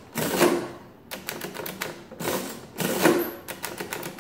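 1940s Barrett ten-key mechanical adding machine being worked by hand. The side operating handle is pulled through its cycle three times, each pull a loud mechanical clatter and whir of the printing and adding mechanism. Runs of quick sharp clicks from the number keys come between the pulls.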